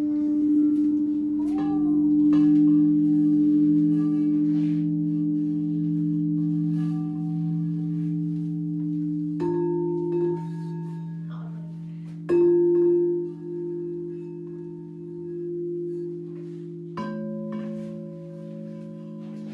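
Frosted quartz crystal singing bowls struck one after another with a mallet, each giving a long, pure, steady tone that keeps ringing as the next is struck, so several notes overlap. There are about four strikes, each sharp at the start and then sustained.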